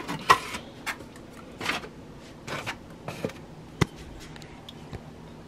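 Foam takeout clamshell containers being handled, a series of short scraping rubs of the foam lids, with one sharp click a little under four seconds in.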